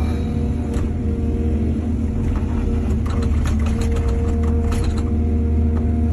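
Heavy diesel excavator engine running steadily, with a run of metallic clanks and scrapes in the middle.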